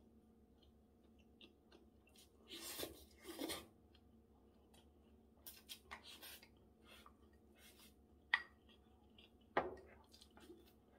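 Close-up eating sounds: slurps of japchae glass noodles twice about three seconds in, then quiet chewing, and two sharp clicks of chopsticks against a ceramic rice bowl near the end.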